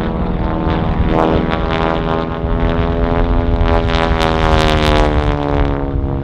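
North American Harvard's Pratt & Whitney R-1340 Wasp radial engine and propeller running at display power as the aircraft passes, a loud rasping buzz. It grows loudest and crackles about four to five seconds in, and its pitch falls as the plane goes by.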